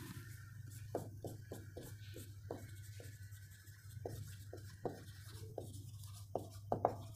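Marker pen writing on a whiteboard: a faint run of short, irregular squeaks and taps as letters are written, over a low steady hum.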